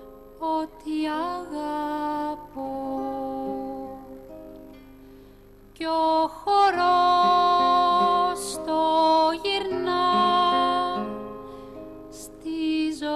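Slow, gentle folk song: a voice singing long held notes with slides between them, over plucked strings and accordion. The song goes quieter for a few seconds before the middle, then swells back.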